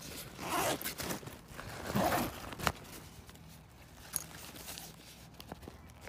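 Nylon backpack fabric rustling and scraping as hands open and rummage through its zippered compartments, with two louder bouts in the first half and a sharp click shortly after, then quieter handling.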